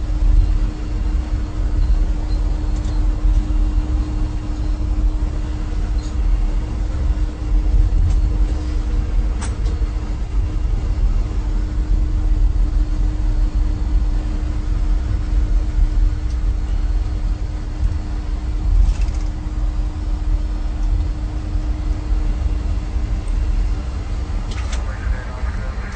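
Inside an Airbus A320 cockpit during take-off: a steady low rumble of engines and airframe with a steady hum, broken by a few faint clicks or rattles. The hum fades out near the end.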